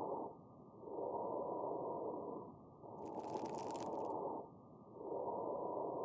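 Lung sounds heard through a stethoscope: breaths rise and fall in a slow, even rhythm, with a burst of fine, high-pitched crackling about halfway through on an in-breath. These fine crackles are an abnormal lung sound.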